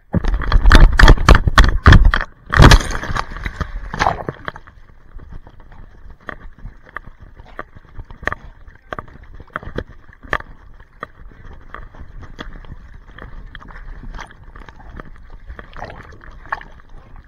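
Handling noise on the camera's microphone: loud bumping and rubbing for about the first three seconds as an animal's fur presses against it, then scattered light clicks and knocks while the camera is swung about.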